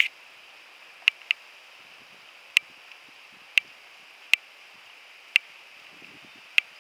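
Sharp clicks or knocks from kayak paddling, roughly one a second and irregular, over a faint steady hiss of water and wind.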